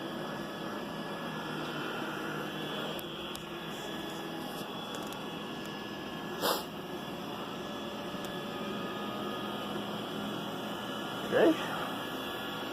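iRobot Roomba 960 robot vacuum running on carpet: a steady hum with a few fixed tones. One short, louder sound about six and a half seconds in.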